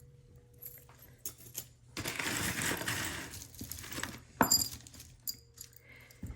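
Costume jewelry pieces clinking and rattling as they are sorted by hand: a few light clicks, a jumbled rattle for about two seconds, then a sharp metallic clink with a brief ring about four and a half seconds in.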